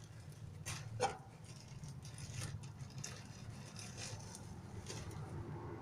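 A few faint clicks and knocks from handling parts inside a washing machine, the loudest about a second in, over a steady low hum.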